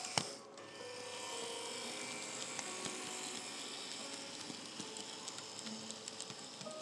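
N scale model passenger train running past: a small electric motor whirring steadily with faint ticking of wheels over the track, and one sharp click just after the start.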